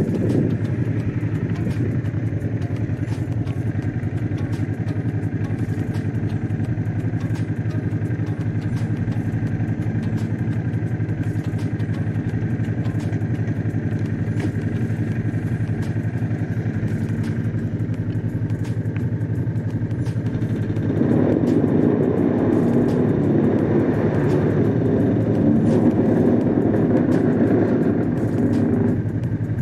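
Honda CX500's water-cooled V-twin engine running steadily under way on the road. For several seconds from about two-thirds of the way in it grows louder and fuller, then drops back near the end.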